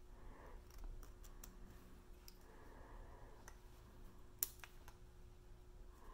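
Faint small metallic clicks as a piston ring is spread by hand and worked into its groove on an Evinrude V4 crossflow piston, with one sharper click about four and a half seconds in.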